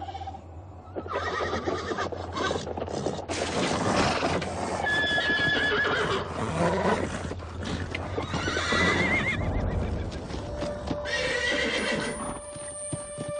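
Horses whinnying several times over a clatter of hoofbeats. A music score comes in near the end.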